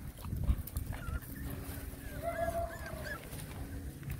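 Young puppies whining and squeaking: a drawn-out whine of about a second near the middle, with short rising-and-falling squeaks before and over it, above a low rumbling noise.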